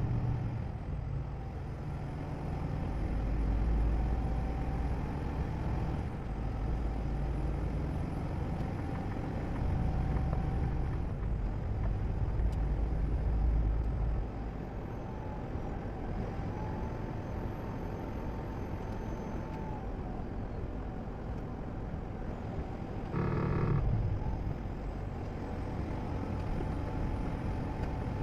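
Steady road and engine noise of a vehicle driving. The low rumble swells and eases a few times, and a short horn-like tone sounds once, about 23 seconds in.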